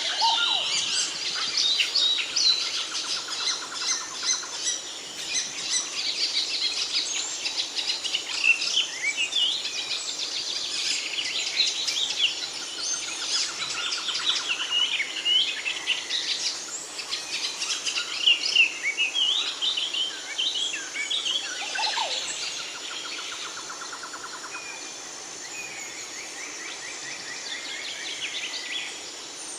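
Several songbirds chirping and singing at once, a busy chorus of quick overlapping chirps and trills that thins out and gets quieter about two-thirds of the way through.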